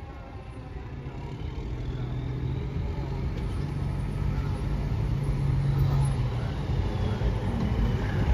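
A fire engine's diesel engine runs with a steady low drone that grows louder as the truck pulls up. At the very start, the tail of a siren winds down and fades out.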